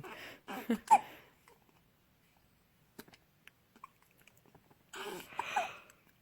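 Twin babies hiccuping: a sharp, squeaky hiccup about a second in, a few faint clicks, then another hiccup with a breathy sound about five seconds in.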